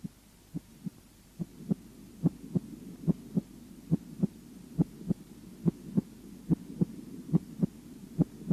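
Recorded heart sounds: the first and second heart tones in repeating lub-dub pairs, about 70 beats a minute, over a low steady hum. The beats are faint at first and grow louder about a second and a half in. They are typical of a normal heart heard at the apex.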